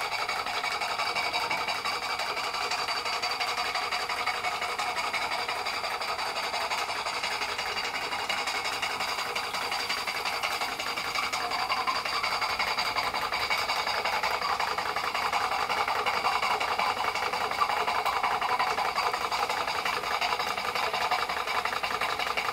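Märklin 16051 twin-cylinder compound horizontal stationary steam engine running steadily on live steam, a fast, even mechanical beat of exhaust and moving parts, a little louder in the second half.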